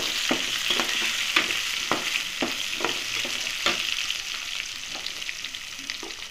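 Onion pieces sizzling in hot oil in a metal kadai, stirred with a metal spatula that scrapes and clinks against the pan about twice a second; the stirring eases off in the second half.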